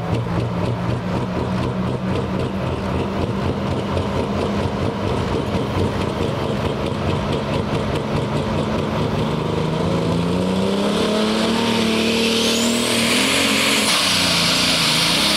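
Turbocharged engine of a Super/Pro Stock pulling tractor running steadily at the line, then revving up from about ten seconds in with a thin whine rising to a high pitch, going to full power near the end as the tractor launches into its pull.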